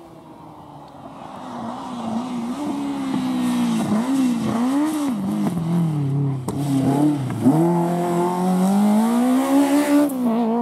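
Rally car engine coming closer at speed, its revs rising and falling several times as the driver lifts off and gets back on the throttle, then climbing steadily under full acceleration as it passes close by and grows loud.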